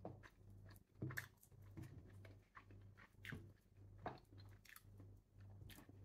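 Brittle sweet tamarind pod shells cracking and crackling as they are peeled by hand: quiet, irregular snaps about once a second, over a faint low hum.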